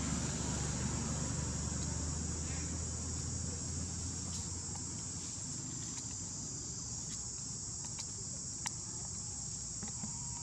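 Steady high-pitched insect chorus, with a low rumble fading out over the first few seconds and a few faint clicks.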